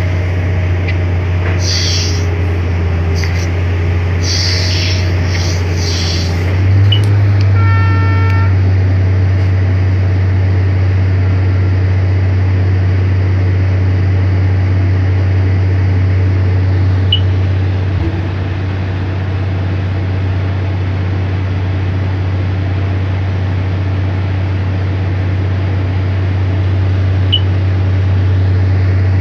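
Excavator diesel engine running steadily, heard from inside the cab, with gravel spilling from the bucket in bursts of hiss during the first six seconds and a short pitched beep about eight seconds in.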